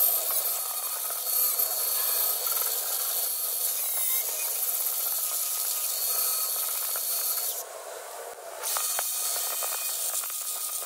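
DeWalt angle grinder with its disc against steel, grinding down the weld bead on the welded end cap of a rectangular steel tube. The grinding runs steadily and drops off for about a second near the end before picking up again.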